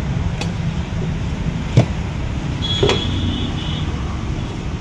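Steady low rumble of passing road traffic, with a few sharp clacks of a steel serving spoon against steel serving pans, the loudest about two seconds in. A brief high beep sounds about three seconds in.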